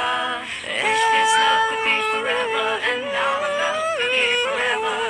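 Music: a Thai love ballad, the singer holding long notes over the instrumental backing.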